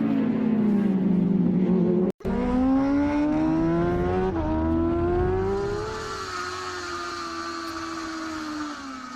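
Racing motorcycle engine heard on board: the revs fall as the bike slows, the sound cuts out for an instant a couple of seconds in, then the revs climb through a gear change and hold high and slowly easing, with wind rush growing over it.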